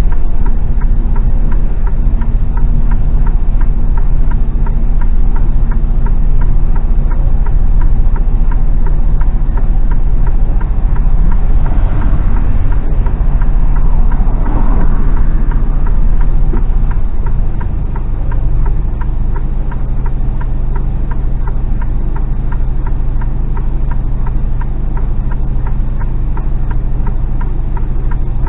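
Mercedes Actros lorry's diesel engine running on the move, heard inside the cab, with a fast even ticking over the engine note. The engine eases off and gets a little quieter about seventeen seconds in.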